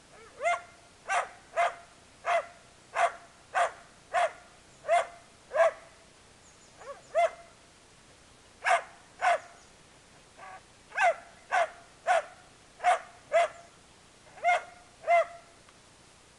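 Dalmatian barking angrily: about twenty sharp barks in quick bouts of two to five, with short pauses between bouts.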